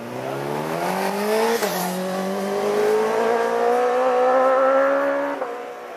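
Road-racing motorcycle engine accelerating hard out of a hairpin. Its pitch climbs, dips briefly at an upshift about a second and a half in, then rises steadily through the next gear before falling away near the end.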